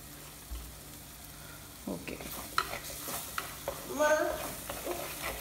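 A ladle stirs and scrapes a thick onion-tomato masala frying in a clay pot, with light sizzling. The first couple of seconds are quiet; then come several short clicks and scrapes of the ladle against the pot.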